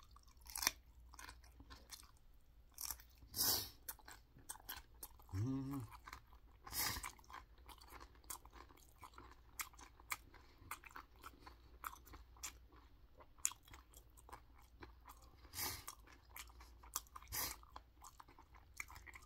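Close-up chewing of a mouthful of raw green chili pepper, with irregular crisp crunches and wet mouth clicks. A brief hum-like vocal sound comes about five and a half seconds in.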